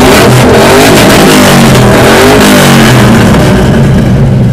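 Ford Mustang exhaust being revved hard in an exhaust contest, the engine note rising and falling several times.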